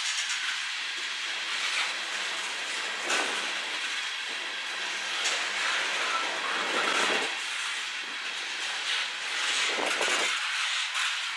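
Tank cars of a CN manifest freight train rolling past: a steady rushing hiss of steel wheels on rail, with irregular clacks as the wheels cross rail joints.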